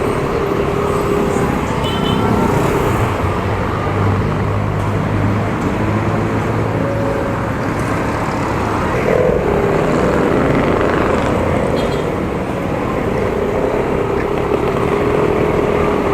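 Road traffic noise: a steady mix of vehicle engines and tyres passing, with engine hums swelling and fading.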